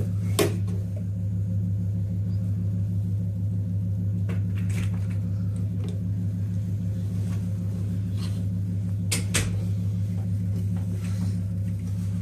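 A steady low mechanical hum, like a motor or appliance running, with a few brief clicks: one about half a second in, one near five seconds and two close together a little after nine seconds.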